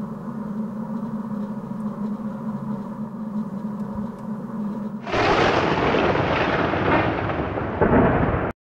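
Film soundtrack sound design: a steady low droning hum with several held tones. About five seconds in it gives way to a sudden, much louder wash of rushing noise, which cuts off abruptly near the end.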